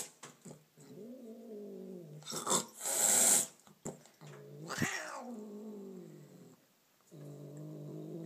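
Angry, defensive cat growling in long, low, drawn-out yowls, three in all, with sharp hisses between them about two to three seconds in and another short hiss near the middle.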